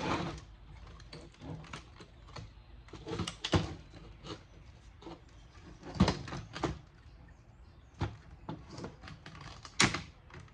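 Irregular clicks, clacks and knocks of circuit boards and small metal and plastic parts being handled while a stereo receiver is taken apart for scrap, with a sharper knock about six seconds in and another near the end.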